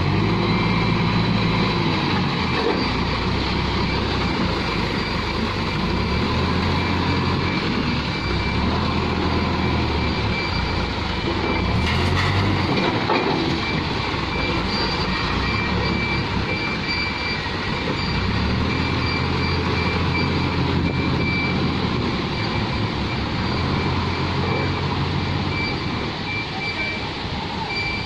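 Tata Hitachi backhoe loader's diesel engine running and rising and falling in speed every few seconds as the machine works its hydraulics, with a steady high whine over it.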